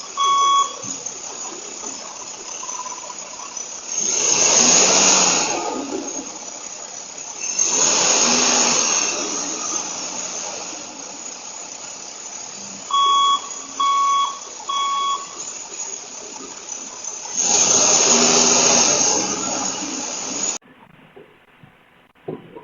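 An electronic alarm beeping in sets of three short, steady-pitched beeps: one set at the start and another about halfway through. In between come three loud swells of rushing noise, each a second or two long, and the sound cuts off abruptly near the end.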